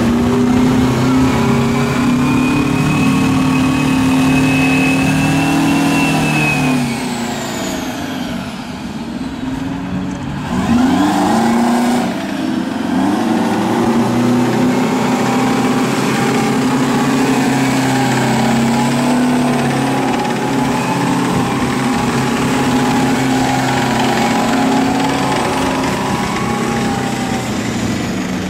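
Tracked self-propelled howitzers driving past one after another, their heavy engines running steadily. The sound dips about eight seconds in and swells again as the next vehicle comes up, with its engine revving up about eleven seconds in.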